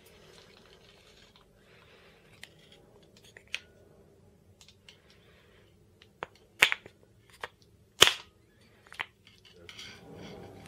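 A wooden camera mounting plate knocking and clicking against a metal tripod head as it is handled, lifted off and set back on: a scattered series of sharp clicks and knocks, the two loudest about a second and a half apart past the middle.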